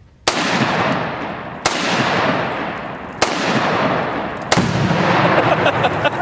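Four loud gunshots fired at tannerite targets, about one and a half seconds apart, each followed by a long rolling boom that fades into the next.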